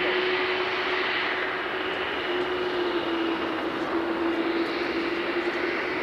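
Airbus A380's four Rolls-Royce Trent 900 turbofans heard from far off as the airliner climbs away after takeoff: a steady jet rush with a constant low hum.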